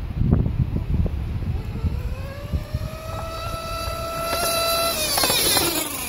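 Kyosho Inferno GT radio-controlled car's engine speeding up as it approaches, its pitch rising steadily, then dropping sharply as the car passes close by about five seconds in. A low, uneven rumble fills the first couple of seconds.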